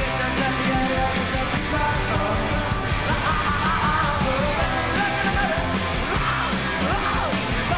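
Live indie rock band playing, with electric guitar and drums, and the lead singer half-shouting, half-singing the vocal.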